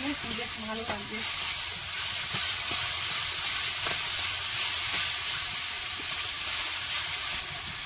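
Onion, whole garlic, green chillies and whole spices sizzling in hot oil: a steady frying hiss with a few faint taps.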